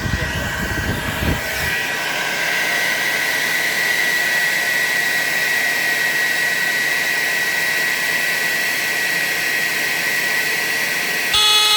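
Hair dryer blowing steadily with a high whine onto the heat sensor of a 1970s Hudson Mfg Co Model 200 security and fire alarm. Near the end the alarm's horn suddenly comes on with a loud, steady pitched blare: the heat sensor has tripped.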